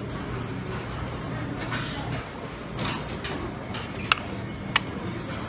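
Restaurant room noise: a steady background din, with two short, light clicks less than a second apart near the end.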